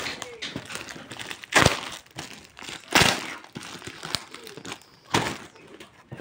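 A utility knife cutting through layers of clear packing tape and cardboard on a parcel, with steady crinkling and tearing of the tape. There are three louder cutting strokes about one and a half, three and five seconds in.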